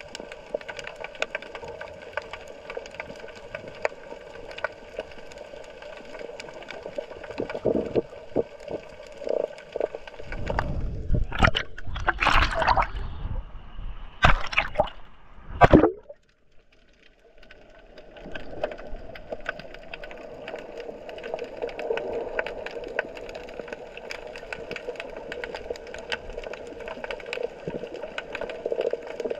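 Underwater sound picked up by a GoPro in its housing: a steady hum dotted with many small crackling clicks. About ten seconds in come several seconds of loud rushing water and knocks, which cut off abruptly; after a short silence the hum and clicks return.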